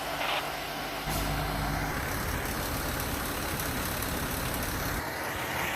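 Fire truck engine running, its low rumble growing louder about a second in and dropping away near the end.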